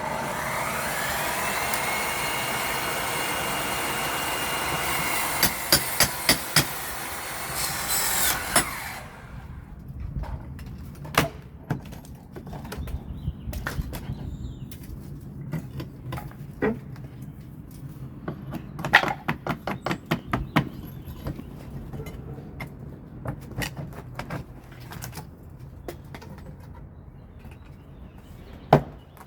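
Cordless power saw spinning up and cutting wood for about eight seconds, with a quick series of sharp clicks near the end of the cut. After that come scattered knocks and clatter of wood being handled.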